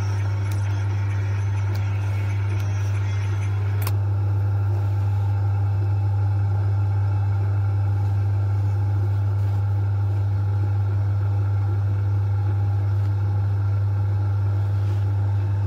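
Steady low electrical hum at one pitch. A few sharp snips of thread nippers in the first four seconds.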